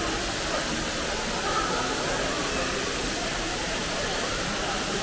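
Steady rushing of an indoor waterfall, with faint voices in the background.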